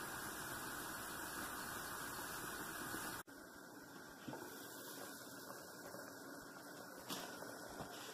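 Pot of soup boiling under a glass lid, a steady faint hiss of bubbling. About three seconds in it drops suddenly to a quieter bubbling hiss with a few faint ticks.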